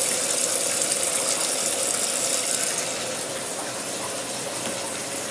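Maytag Neptune front-load washer filling through its cold water and bleach inlet valve, water rushing into the dispenser with a steady hiss and a faint hum. This is step one of the washer's quick service test cycle, the cold water and bleach fill. The sound eases slightly about three seconds in.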